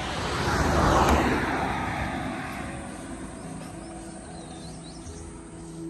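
A vehicle passing by close, its road and engine noise swelling to a peak about a second in and then fading away, with background music coming in faintly near the end.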